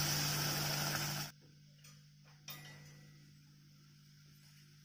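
Water pouring into a pan of sugar, a steady splashing hiss that cuts off abruptly about a second in. After that it is nearly quiet, with a single faint click.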